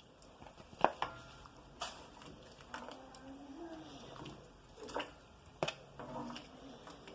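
A utensil knocking and clicking against a cooking pot a handful of times, with some soft wet handling, as boiled chicken pieces are lifted out of their broth. The loudest knock comes about a second in.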